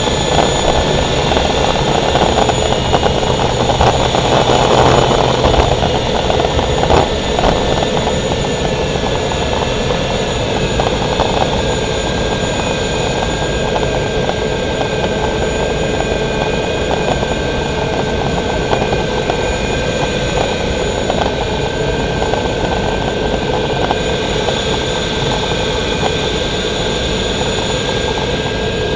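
Gas turbine engine of a catamaran race boat running steadily under way: several steady high-pitched whine tones over a dense rush of noise, rougher and louder for the first several seconds, then evening out.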